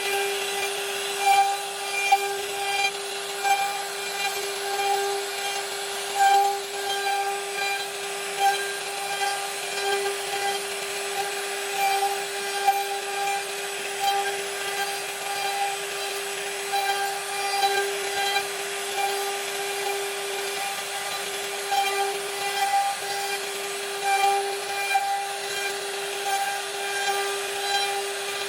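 CNC router spindle running at a steady pitch while a V-bit cuts into wood, the cutting noise rising and falling unevenly over the steady tone.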